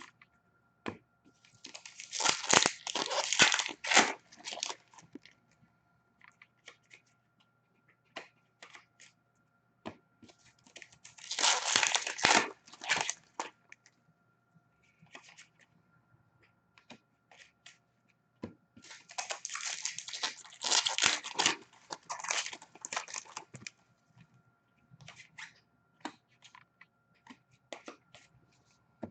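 Hockey card pack wrappers being torn open and crinkled in three loud bursts, with small clicks and rustles of card handling in between. A faint steady hum runs underneath.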